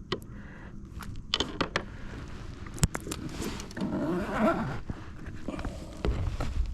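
Gear being handled after a fish is unhooked: scattered clicks and light rattling, one sharp knock about three seconds in, and a scuffling rustle in the middle.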